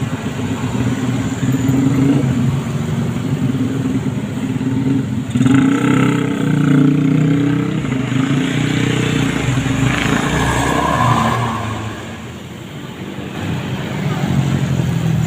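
Engine of a passing bus running close by, loudest about five to seven seconds in, then easing off for a moment near the end.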